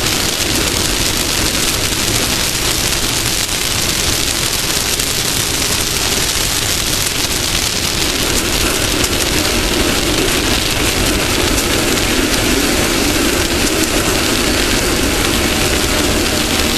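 Off-road race car running at speed, its engine note under a loud, steady rush of wind and dirt noise, the engine getting stronger about halfway through.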